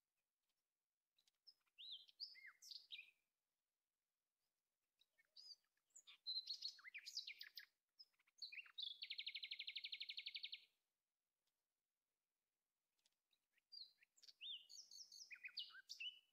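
Faint bird song: high chirps and whistles in three bouts, with a fast, even trill lasting under two seconds about nine seconds in.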